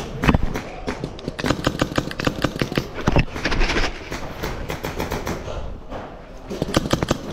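Paintball markers firing, rapid strings of sharp pops several shots a second, easing off in the middle and picking up again near the end.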